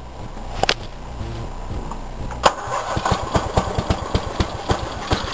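400 cc, 11 hp Columbia lawn mower engine cranking from cold with its choke held shut by hand, then catching about two and a half seconds in and firing in a rapid run of sharp, uneven beats as it starts.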